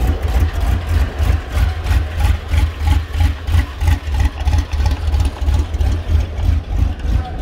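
Early Ford Bronco's engine idling as the truck creeps past, with a rhythmic lope of about three pulses a second.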